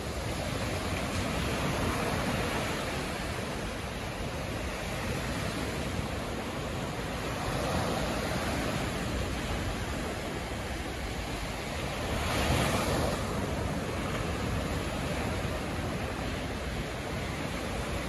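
Sea waves breaking on a beach: a steady wash of surf that swells and fades, with one louder wave crashing about two-thirds of the way through.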